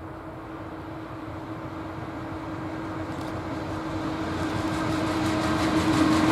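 EU07 electric locomotive hauling a freight train of hopper wagons approaches and draws level, growing steadily louder. A steady hum runs under the rumble, and from about halfway through, wheel clatter on the rails comes in.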